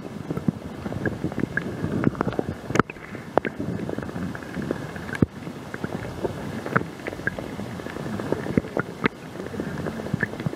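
Muffled, rumbling water noise picked up by a camera held underwater, with many irregular sharp clicks and knocks scattered through it.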